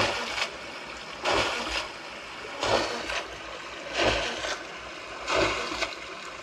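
Recorded water-wheel splashing from a sound library, played back as a mix: a splash with a low thump about every 1.4 seconds, five times, over a steady bed of running water.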